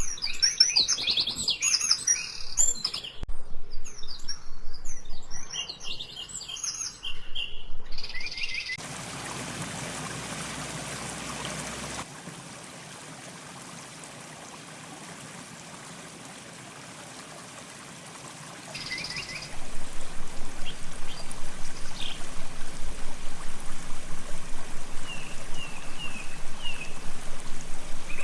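Songbirds chirping and twittering for the first several seconds, then a steady rushing noise like pouring or running water that drops to a quieter hiss. From about two-thirds of the way in, a loud, even rhythm of strokes comes in at about five a second, with a few faint bird chirps above it.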